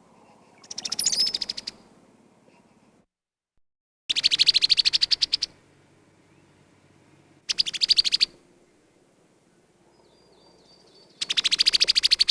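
Brown-headed cowbird giving rapid, rattling chatter calls: four bursts of fast, even clicks, each about a second long and a few seconds apart.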